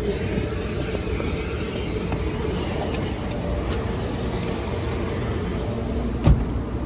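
Steady drone of car-wash vacuum machinery, with a rubber floor mat rustling as it is pulled from the footwell in the first few seconds and a single thump about six seconds in.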